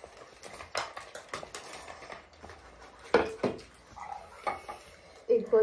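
Spoons and forks clicking and scraping on plates as several people eat noodles, with a couple of short vocal sounds a little past halfway.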